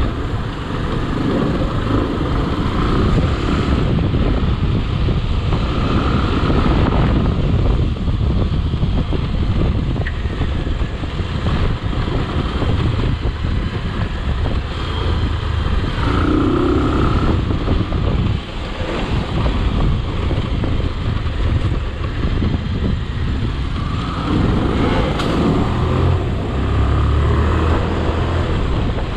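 A motor vehicle running steadily on the move along a rough road.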